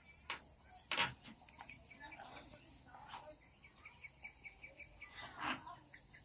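Birds calling in series of short, repeated chirps over a steady high-pitched insect chorus. There is a sharp knock about a second in.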